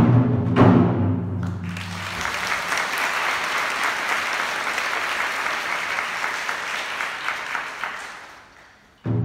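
A wind band and taiko drum land one last loud stroke, and the music stops about two seconds in. Audience applause follows for several seconds and fades away, then the band and drum cut back in suddenly near the end.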